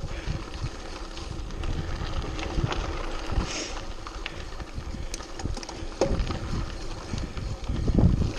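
Mountain bike rolling fast down a dry dirt singletrack: tyre noise on the trail, with the bike rattling and knocking over bumps and wind buffeting the microphone. A heavier jolt comes near the end.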